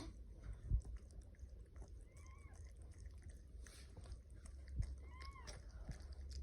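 Newborn kittens mewing faintly, two short high calls about two and five seconds in, over soft scattered clicks.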